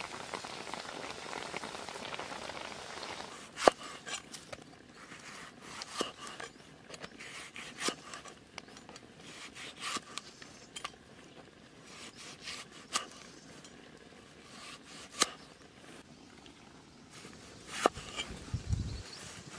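Fish frying in oil with a steady sizzle for the first few seconds. Then a large knife slices green tomatoes on a wooden chopping block: sharp knocks of the blade on the wood every two seconds or so, with softer cutting sounds between.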